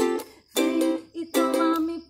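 Ukulele strummed in a steady rhythm, each strum of the chord ringing briefly before the next.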